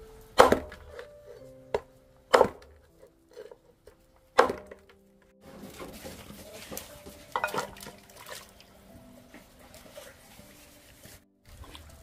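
Cleaver chopping through pork bones on a wooden chopping block: three heavy strikes about two seconds apart. After that come quieter clatter and knocks at a metal pot, over faint background music.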